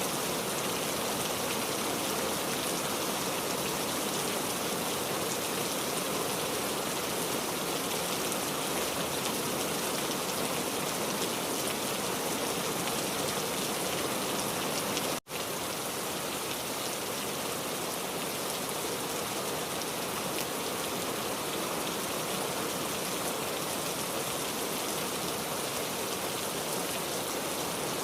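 Steady rain falling, a dense even patter that cuts out for an instant about halfway through.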